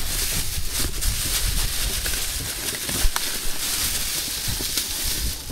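Strong wind buffeting the microphone: a steady rushing hiss over an uneven low rumble, with a few faint clicks.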